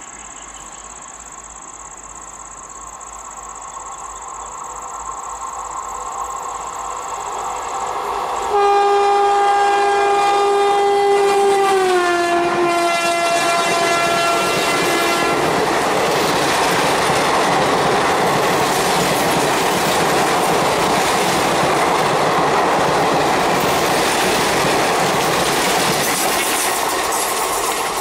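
A WAP4 electric locomotive hauling a passenger express approaches at speed with a rising rumble, then sounds its horn for about seven seconds; the horn's pitch drops as the locomotive passes. The coaches then rush by with rail clickety-clack, easing slightly near the end.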